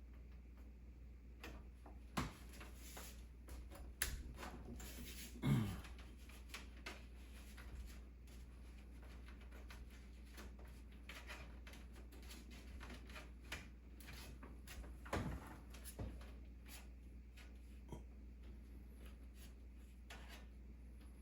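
Scattered clicks, taps and knocks of hands handling PC parts and cables during a build, with a few louder thumps about 2, 4, 5.5 and 15 seconds in.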